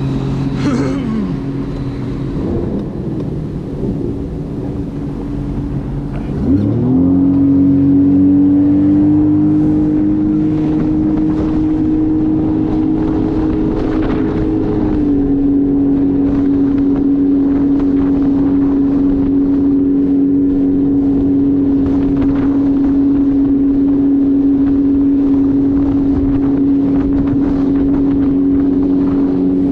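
Jet ski engine running on the water, throttled up sharply about six seconds in, then running steadily at speed with a single even tone that eases slightly about halfway through.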